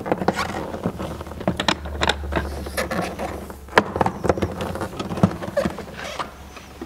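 Irregular clicks, knocks and scraping as the SteraMist unit's hose is wrapped up and stowed against its hard plastic case, over a low steady hum.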